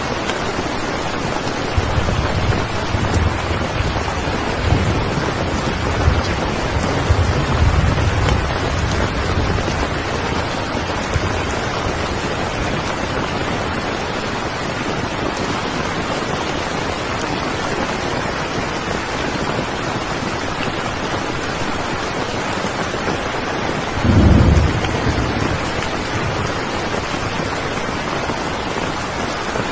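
Steady heavy rain, with low rolls of thunder in the first stretch and a louder thunder rumble about 24 seconds in.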